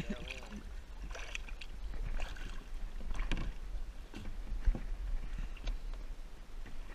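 Water splashing and sloshing against a plastic kayak close to the microphone, in irregular splashes about once a second, over a low steady rumble.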